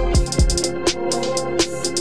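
Electronic background music with a drum-machine beat: rapid hi-hat ticks over deep kick drums that drop quickly in pitch, with held synth tones.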